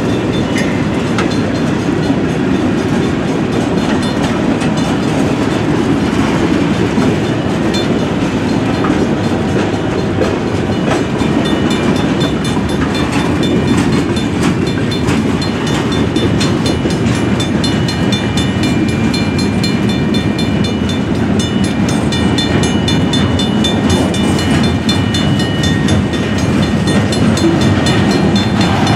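Freight train cars rolling past: a steady rumble with the clickety-clack of steel wheels over the rail joints. Faint high-pitched tones come in over it in the second half.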